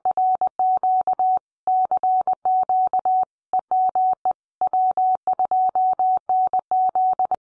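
Morse code: a single steady beep keyed on and off in quick short dots and longer dashes, with brief pauses between letter groups.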